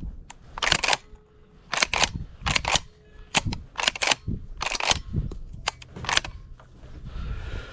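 A series of short, sharp clicks and knocks, several in quick pairs, spread over a few seconds: gear being handled.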